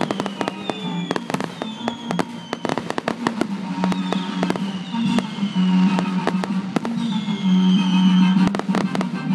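Aerial firework shells bursting in rapid succession, many sharp bangs and pops packed close together, with music playing underneath.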